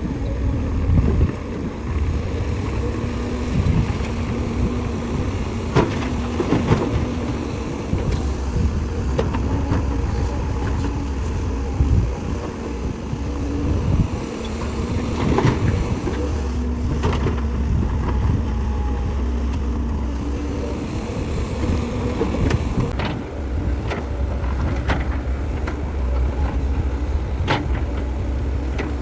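Heavy diesel construction machinery running under load, with a steady low engine rumble and scattered sharp knocks and clanks.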